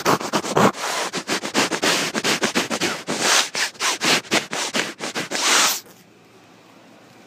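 A man sniffing a cat's fur close up, a rapid run of short sniffs with a few longer drawn-in breaths, mixed with fur rubbing against the microphone; the sniffing stops abruptly about six seconds in.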